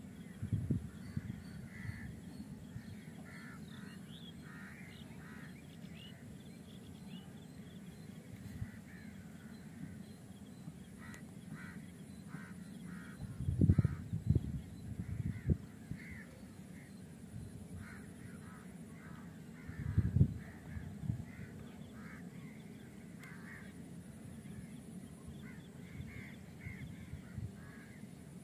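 Repeated short bird calls, crow-like, over a steady low outdoor rumble, with two loud low rumbles about halfway through and again some seconds later.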